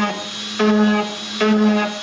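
Rotary tool with a small tube bit pressed onto a model aircraft panel to cut scale rivet marks, one rivet at a time. Each press gives a buzzing hum of the same steady pitch, about one a second, with two full presses heard.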